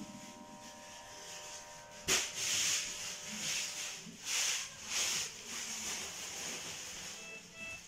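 Automatic blood pressure monitor taking a reading: a steady pump hum that stops about two seconds in, then several short bursts of hiss as the arm cuff lets out air, and three short beeps near the end.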